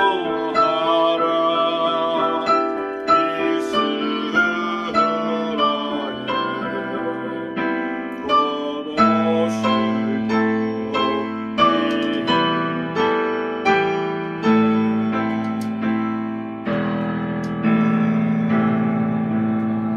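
Slow, gentle piano music: notes struck about twice a second over held chords that change every few seconds.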